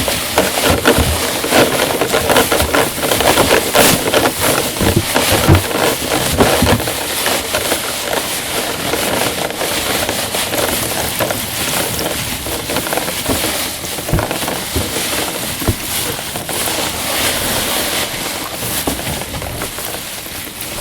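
Improvised foley rain made with household objects: a dense crackling patter with scattered sharp clicks, slowly growing quieter.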